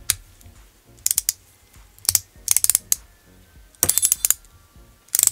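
Ratcheting hex driver clicking in short bursts of rapid clicks, about five times, as it is worked back and forth to drive a grub screw into a differential case and seal in the diff oil.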